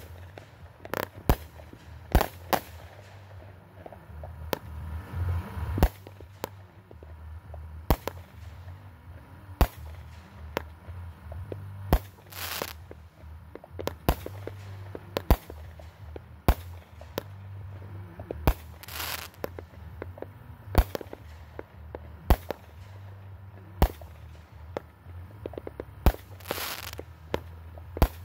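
Aerial firework shells bursting one after another in a grand finale: sharp bangs roughly once a second, with a few longer hissing bursts among them.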